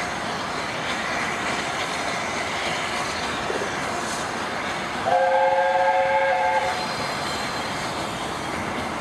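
LNER Peppercorn A1 Pacific 60163 Tornado running slowly with a steady hiss of steam and running noise. About five seconds in it sounds one blast on its chime whistle, a three-note chord lasting about a second and a half.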